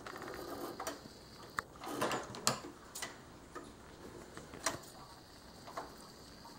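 Fabric rustling and scattered light clicks and taps as cloth is handled at a sewing machine, with a short swell of rustling about two seconds in.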